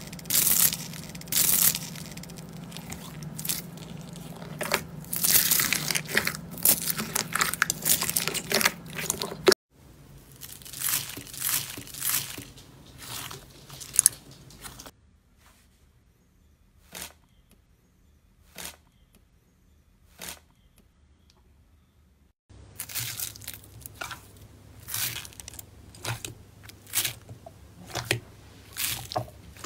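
Hands squeezing and pressing slime mixed with foam beads and white granules, giving crunchy crackling and squishing with sharp pops. About halfway through it drops to a quiet stretch with only a few scattered pops, then the dense crackling starts again.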